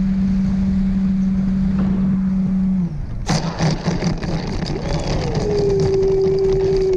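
Electric ducted fan of a 4S 64 mm EDF-converted FMS SuperEZ RC plane running, with heavy wind rumble on the microphone. The steady low hum stops with a sharp click about three seconds in, and a higher whine takes over, swinging up and settling, as the throttle changes.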